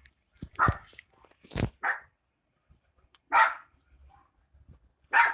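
A dog barking: about five short, separate barks spread over a few seconds.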